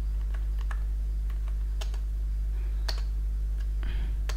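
Computer keyboard keys tapped in scattered, irregular clicks over a steady low electrical hum.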